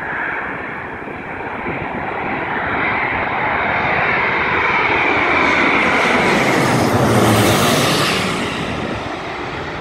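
Airbus A350-900's Rolls-Royce Trent XWB turbofans on final approach with gear down, passing low directly overhead: the jet noise swells, is loudest with a bright hiss about seven to eight seconds in, then eases as the whine drops in pitch.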